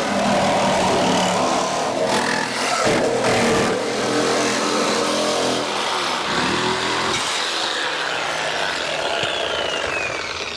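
Petrol chainsaw running hard, cutting through a car's sheet-metal body, its pitch falling away near the end as the cut finishes.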